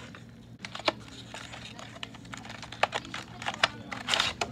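Small cardboard box being handled and opened, and its clear plastic tray slid out: a run of light taps, clicks and scrapes with crinkling, busiest near the end.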